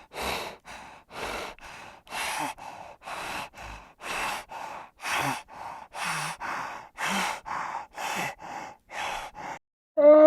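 Heavy, rhythmic breathing of an animal: short noisy in-and-out breaths, about two a second. A pitched call begins at the very end.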